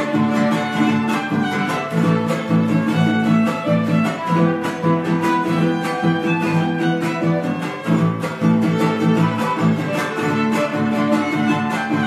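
Son huasteco (huapango) trio playing an instrumental interlude: violin carrying the melody over the rhythmic strumming of a jarana huasteca and a huapanguera.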